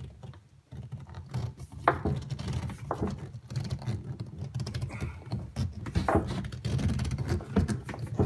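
Irregular rubbing, scraping and knocking of a 3/4-inch PVC pipe being twisted and forced through a tight rubber uni-seal in the wall of a plastic trash can, with a low rumble from the can underneath.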